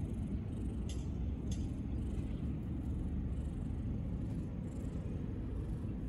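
Black cat purring as its chin is stroked, a steady low rumble that shows it is content.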